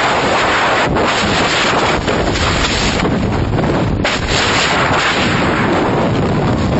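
Loud, steady rush of wind battering the camera microphone in the airflow of a skydive at the aircraft's open door and in freefall.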